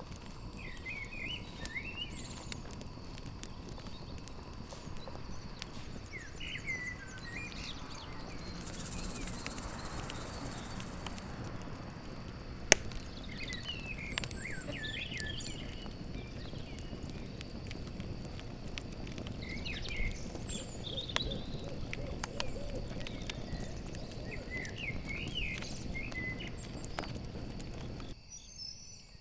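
Campfire crackling with small pops, over a steady trill of crickets and repeated short bird chirps. A single sharp pop from the fire about halfway through is the loudest sound. Near the end the fire and birds drop away.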